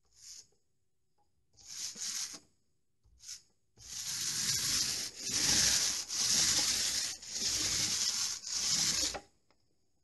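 Paint roller rolling emulsion onto a plastered wall, a rubbing hiss: a few short strokes at first, then about five up-and-down passes in a near-continuous run from about four seconds in.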